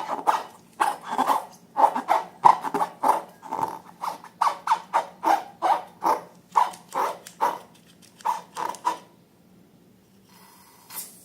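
Rubber balloons being rubbed and squeezed by hand, squeaking in a quick, even rhythm of about two to three strokes a second. The squeaking stops about nine seconds in.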